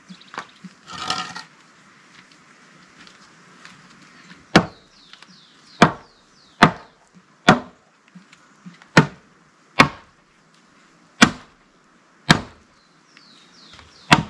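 Wood being struck: about nine sharp knocks at irregular intervals of roughly a second, beginning a little under halfway through, as a wooden post is knocked. A short scraping rustle of wood comes about a second in.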